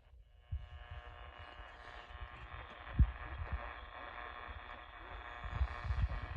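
Buzzing hum with many steady overtones from a radio receiver, over irregular low thumps; it starts about half a second in, and one thump about three seconds in is the loudest.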